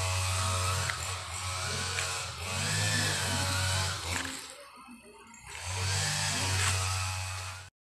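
A power tool running, its pitch dipping and rising several times. It drops away for about a second past the middle, starts again, then cuts off sharply near the end.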